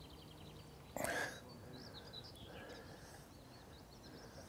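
Faint songbird chirping, with a short splash about a second in as a hooked chub is drawn in at the surface.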